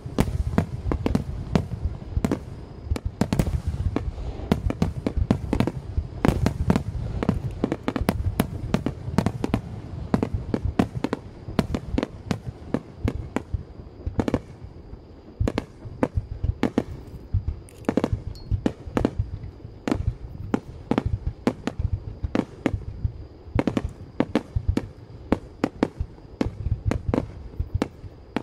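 Fireworks display: aerial shells bursting in a rapid barrage, many sharp bangs a second over a low rumble. The bangs thin out a little past the middle, then keep coming.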